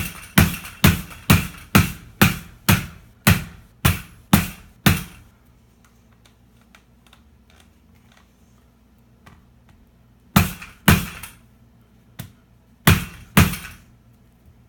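Rubber mallet whacking a Gamma Seal lid's adapter ring down onto a plastic bucket rim: a quick run of about a dozen blows, about two a second, then a pause and two pairs of blows later on.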